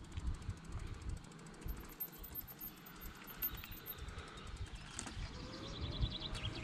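Wind buffeting the microphone, with a bicycle freewheel ticking in a quick, even run near the end.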